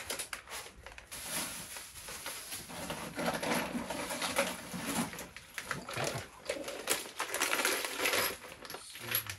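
Clear plastic bag crinkling while small glass bottles and corks are shaken and handled inside it, with light clinks of glass.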